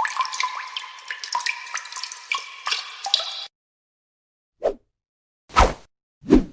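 Water dripping: a quick, dense run of pitched plinks that stops suddenly after about three and a half seconds. Then three short separate sounds follow, the last two deep and thudding.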